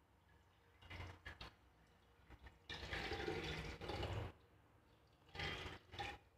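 Hands sloshing and stirring liquid indigo vat dye in a small pot: a short splash about a second in, a longer churning stretch from about three to four seconds, and another splash near the end.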